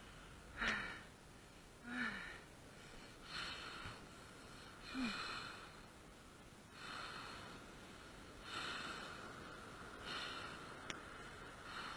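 A person breathing hard: seven faint, short gasping breaths come about every second and a half, a few of them with a slight voiced catch.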